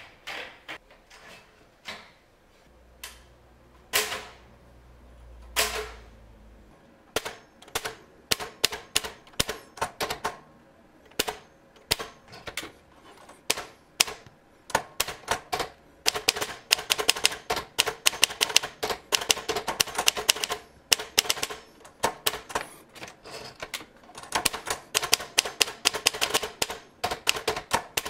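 Manual typewriter being loaded and typed on. First come a few scattered clacks and two heavier knocks as the paper goes in, then keys striking in irregular runs of rapid clacks that grow denser about halfway through.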